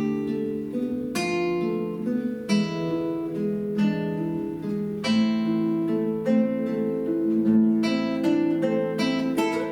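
Two acoustic guitars playing together: plucked notes and strummed chords ringing over a steady bass line.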